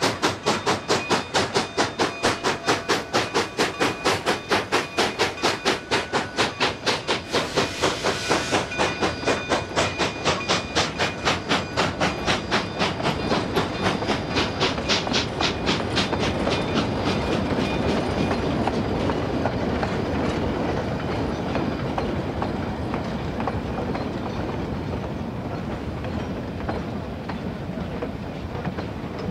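Narrow-gauge freight cars rolling past, their wheels clicking rapidly and evenly over the rail joints. A brief hiss comes about seven seconds in. Past the middle the clicking blends into a steady rumble that slowly fades as the last cars and the caboose go by.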